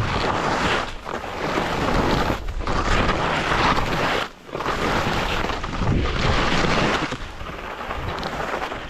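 Loud wind rush over the microphone of a skier skiing a mogul run, mixed with skis scraping the snow. The noise comes in uneven surges, dropping out briefly about two and a half and four and a half seconds in, and eases a little near the end.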